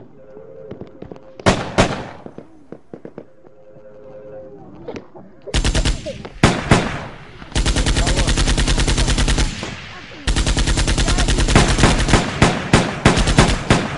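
Gunfire: a couple of single shots about a second and a half in, then, from about halfway through, long loud bursts of rapid automatic fire with a short break around ten seconds in.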